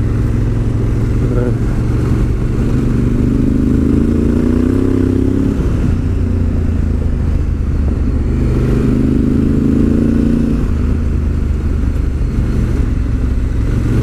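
Honda CRF1000L Africa Twin's parallel-twin engine running on the move, heard from the rider's position. The engine pitch climbs twice under acceleration, about three seconds in and again about nine seconds in, then drops back.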